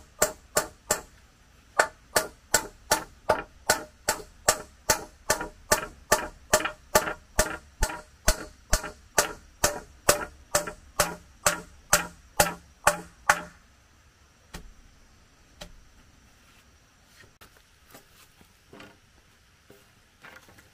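Regular blows of a hand tool on wood, about two a second, with a short pause a second in, stopping after about thirteen seconds; a few scattered lighter knocks follow.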